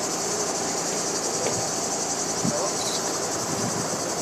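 A steady, dense chorus of insects shrilling high-pitched with a fast pulsing texture, over a low rumble.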